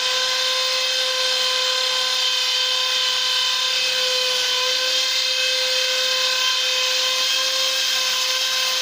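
Electric drill (barena) running at steady full speed while drilling a hole for the grill mounting, a constant high-pitched motor whine.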